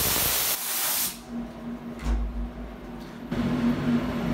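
A loud hiss for about the first second, then a steady mechanical hum with a low tone from a Haas Mini Mill 2 CNC milling machine, which sets in about three seconds in.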